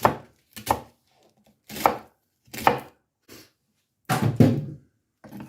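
Knife cutting through the tough core of a green cabbage on a cutting board: about six separate, irregularly spaced cuts, the longest and loudest about four seconds in.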